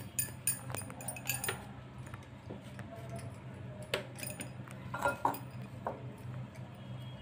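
Scattered light clinks and clicks from hands patting potato tikki mixture into patties over a ceramic bowl and plate, with bangles on the wrist knocking together. A steady low hum runs underneath.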